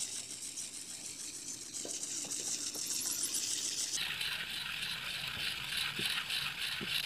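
A freshwater mussel shell being rubbed in quick circles on a flat stone, grinding a hole through it. It makes a steady, rapid, gritty scraping whose tone drops somewhat about four seconds in.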